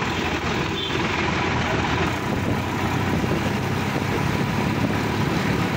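Sonalika DI-50 RX tractor's diesel engine running steadily as the tractor drives along, heard from on board.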